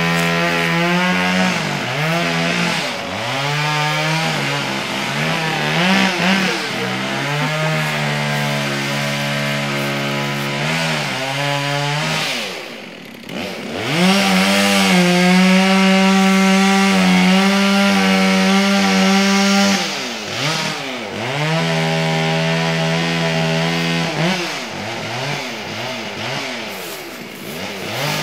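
Chainsaw running hard through wood, its engine pitch sagging and recovering again and again. The level drops briefly about halfway through, then it holds steady at high revs for several seconds.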